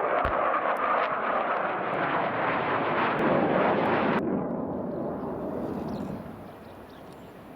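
Mitsubishi F-2 fighter's single F110 afterburning turbofan, a loud jet roar as the aircraft flies past. The hissing top of the sound drops away suddenly about four seconds in, and the roar fades over the last two seconds.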